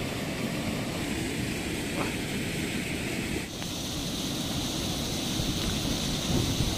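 Water pouring over a low concrete weir and churning into foam below, a steady rushing roar. About halfway through, the hiss shifts higher.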